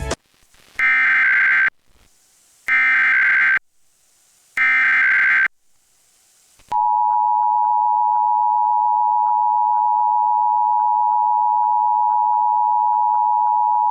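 Emergency Alert System activation: three short bursts of SAME digital header data, each a warbling data tone about a second long and a second apart, then the steady two-tone EAS attention signal (853 and 960 Hz sounded together) beginning about seven seconds in.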